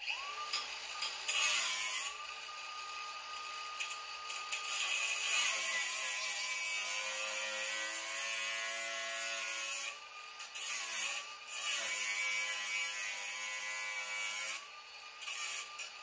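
Small angle grinder with a cut-off wheel starting up and cutting through the steel cab mount on the truck's frame. Its high whine sags in pitch several times as the wheel bites into the metal under load and climbs back as it eases off, over a steady hiss of cutting.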